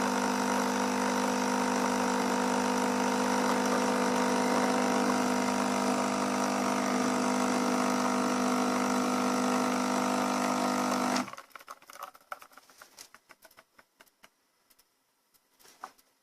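Dolce Gusto capsule coffee machine's pump running steadily as it dispenses a drink, then cutting off suddenly about eleven seconds in, which marks the end of the brew. A few faint small clicks follow.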